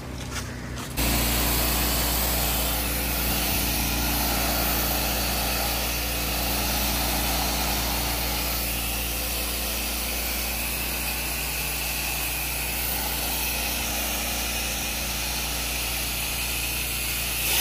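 A pressure-wash spray wand's jet hissing steadily against vinyl house siding, over the steady drone of the washer's pump and engine. It starts abruptly about a second in, as the trigger is pulled.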